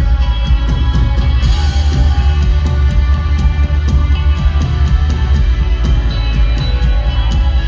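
Live rock band playing loud through a concert PA: heavy bass, a drum kit keeping time with steady hi-hat ticks, and a cymbal crash about a second and a half in.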